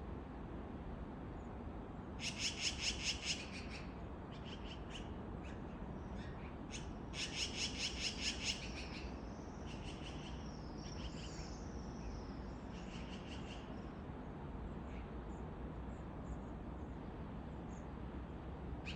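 Wild birds calling: two rapid runs of sharp, high notes, each lasting about a second, around two and seven seconds in, with scattered single chirps and a wavering high whistle between them, over a steady low background hiss.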